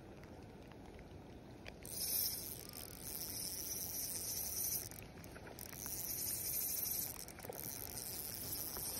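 Spinning reel being cranked to retrieve a lure, giving a high hiss in three stretches that stop briefly about five and seven seconds in: a stop-and-go retrieve.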